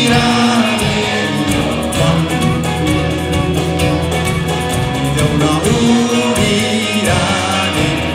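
Live band playing a song with sung vocals, acoustic and electric guitar and keyboard.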